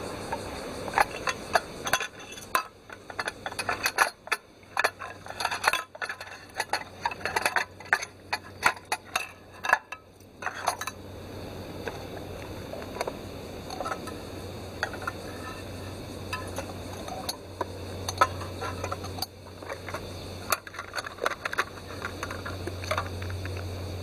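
Metal clinking and clattering as the steel case of a British Army No. 7 cooker is opened and its brass petrol stove is handled. The clinks are thick for the first ten seconds or so, then come only now and then.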